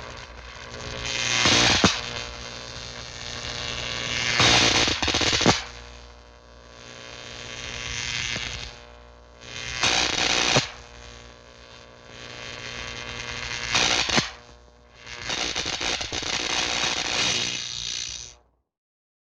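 Old cartoon electricity sound effect: a steady electrical hum that swells into crackling surges of sparking about five times, then cuts off suddenly near the end.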